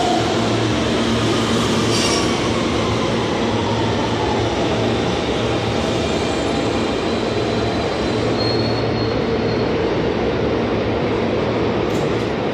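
R160 subway train pulling into the station and braking to a stop: steady wheel and rail noise, the motor whine falling in pitch as it slows, and a brief high squeal a little past the middle.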